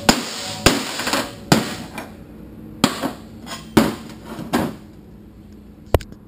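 Toyota A340 transmission's third (direct) clutch drum being rapped against a steel workbench to knock the clutch piston out of its bore: a run of sharp metal knocks, about one a second.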